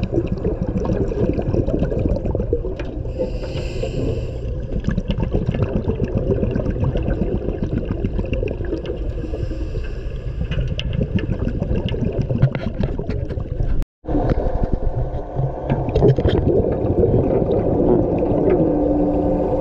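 Underwater sound inside a shark-diving cage: divers' regulator breathing and bubbling exhalations over a steady low hum. There is a brief drop-out about two-thirds through.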